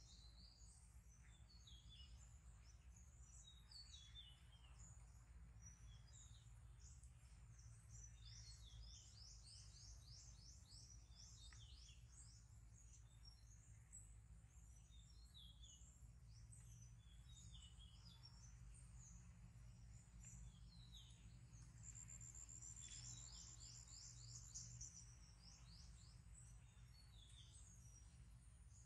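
Faint birds chirping and twittering, with quick runs of repeated high chirps, over a low steady background rumble.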